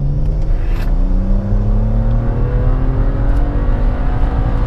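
BMW N54 twin-turbo straight-six, running Chinese 17T hybrid turbos on E85, accelerating hard at full throttle, its pitch rising steadily through a gear, heard from inside the cabin.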